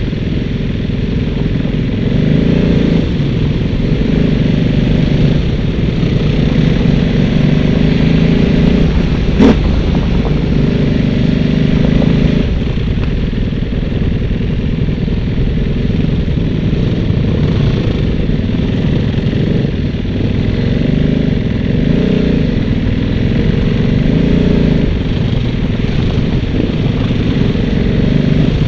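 A vehicle engine running steadily under way, its note rising and falling every few seconds. There is a single sharp knock about nine and a half seconds in.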